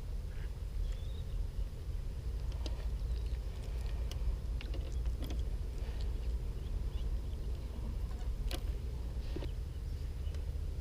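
Outdoor ambience: a steady low rumble with scattered small clicks, one sharper click about eight and a half seconds in, and a faint short chirp about a second in.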